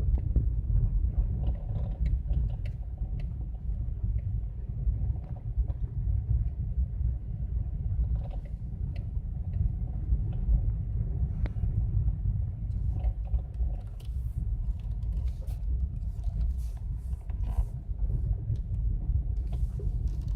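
2012 Kia Morning being driven: a steady low rumble with scattered short clicks and knocks, more of them in the last few seconds. This is a noise the car makes while driving that the owner has not yet been able to fix.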